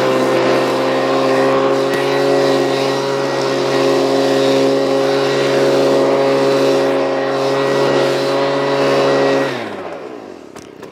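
Stihl handheld petrol leaf blower running steadily at full throttle while blowing debris off a rubber roof membrane. Its pitch falls away near the end as it is throttled back.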